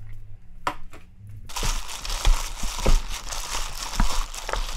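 Hand in a disposable plastic glove mixing seasoned cockle and shredded radish salad in a stainless steel bowl, starting about a second and a half in: plastic crinkling and wet food squishing, with frequent short thumps.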